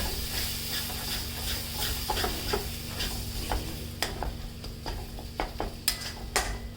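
A spoon stirring and scraping turmeric, dry ginger and ground dates as they roast in ghee and oil in a pan, in irregular strokes over a steady low sizzle.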